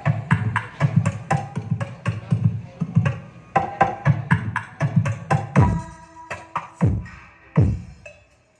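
Dance music played loud through a mini sound system, a fast percussive beat over heavy bass. In the second half, three deep falling bass sweeps sound, and then the music cuts off just before the end.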